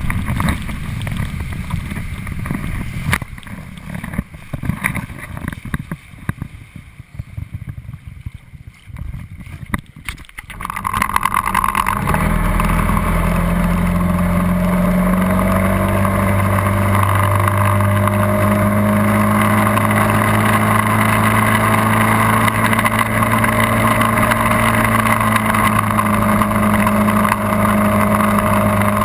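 Wind and water buffeting a camera riding on a towed tube, uneven rumble with knocks, for the first ten seconds or so. Then a Johnson outboard motor running steadily at speed under the load of towing the tube, its pitch rising briefly soon after it comes in, over the hiss of the churning wake.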